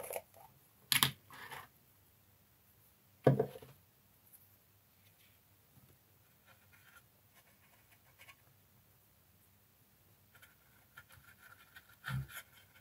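Two sharp knocks in the first few seconds, then faint scratching as a paintbrush dabs and works enamel wash over a varnished plastic model part.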